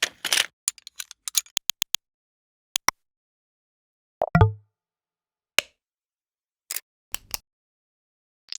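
A series of different short click sound effects played one after another with silence between them: a rapid run of clicks, then single and double clicks, one of them with a short low thump about four seconds in.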